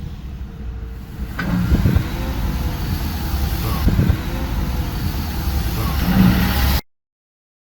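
An engine running with a low rumble that gets louder about a second and a half in, then cuts off abruptly near the end.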